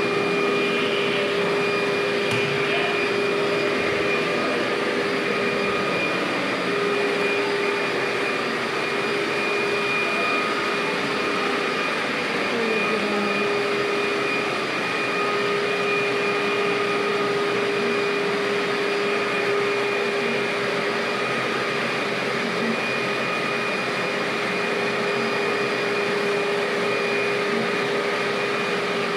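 Canister vacuum cleaner running steadily, a constant motor whine over the rush of suction air as the wand is worked along the floor and walls.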